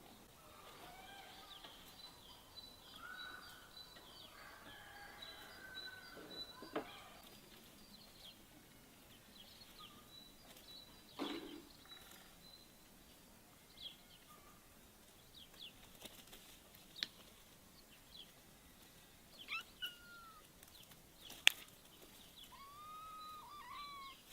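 Birds chirping and calling in short, gliding notes, with several sharp clicks or knocks; the loudest knock comes near the end.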